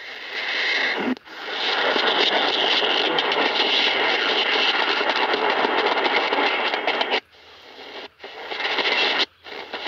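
Shortwave static and hiss from a Degen CY-1 pocket radio's speaker as it is tuned through the 16-metre band around 17.8 MHz, with no clear station coming through. The sound drops out briefly about a second in and several times near the end as the frequency is stepped.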